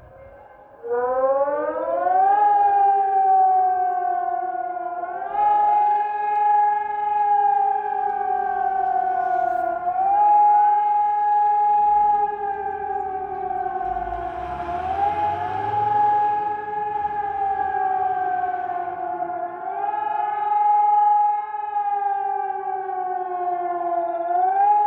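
Civil defence warning siren starting up about a second in, its pitch climbing steeply. It then sounds the public warning signal: a rising and falling howl that climbs quickly and sinks slowly about every four to five seconds. A brief rushing noise with a low rumble joins it about halfway through.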